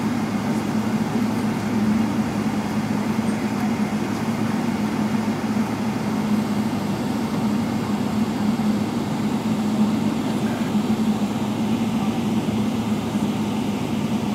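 Steady cabin noise of a Boeing 777-300ER taxiing, heard from a window seat: its GE90 engines at idle and the cabin air make a constant low hum under an even rush.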